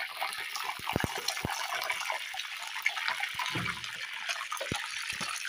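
Whole tilapia deep-frying in hot oil in a wok, sizzling and crackling steadily as it is turned, with a few sharp knocks or clicks along the way.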